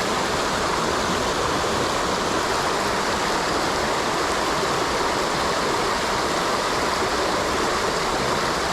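Fast-flowing creek water rushing steadily, an even, unbroken hiss of current.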